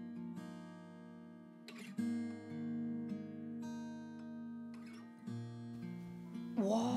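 Background music: an acoustic guitar strumming slow, ringing chords, with a new chord struck about every three seconds.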